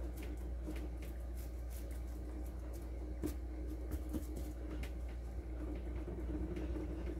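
Faint scattered rustles and small clicks of a hand pressing and levelling damp coco coir substrate inside a clear plastic tub, over a steady low hum.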